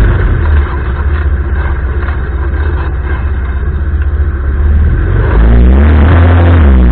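Arora Herkul ATV's air-cooled single-cylinder four-stroke engine running while riding, with a rapid pulsing note that eases off early and picks up again after about five seconds.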